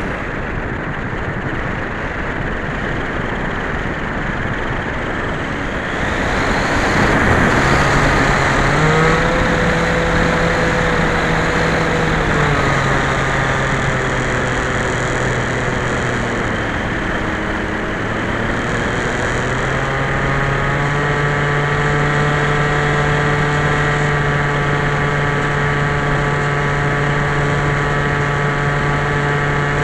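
Skyhunter FPV plane's electric motor and propeller, heard from on board over wind rush. The wind swells about seven seconds in. The propeller hum then comes in, shifts up and down in pitch with the throttle, dips briefly, and holds steady through the second half.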